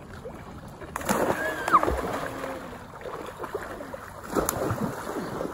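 Children splashing and wading through shallow river water, with children's voices and shouts mixed in.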